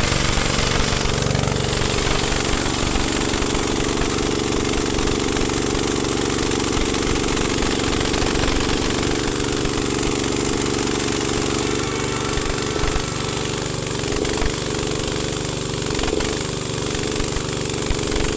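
Small petrol engine of a portable power sprayer running steadily and driving its spray pump while water jets from the spray gun. The engine note shifts slightly about twelve seconds in.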